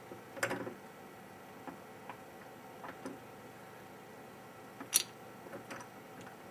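Scattered small clicks and taps of a GPU chip and metal parts being handled, loosened and re-tightened in a metal BGA reballing jig. The loudest, sharpest click comes about five seconds in.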